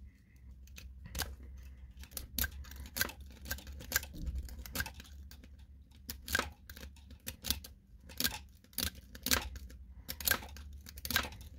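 Thin steel lock pick working the pins of a hand-held Cisa pin-tumbler euro cylinder under an L-shaped tension wrench: irregular sharp metallic clicks, a few a second, with light scraping.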